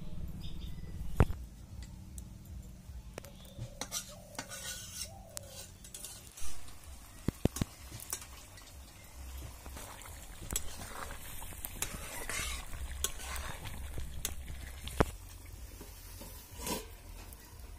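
A steel spatula scraping and clinking against an iron karahi as chicken curry is stirred and fried over a wood fire, with a light sizzle and irregular sharp metal knocks. Near the end, a steel plate set on the pan as a lid clanks.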